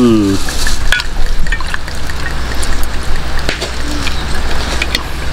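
Whisky poured from a small bottle into a glass, with a few light clicks of glass about a second in. A short hummed voice sound right at the start.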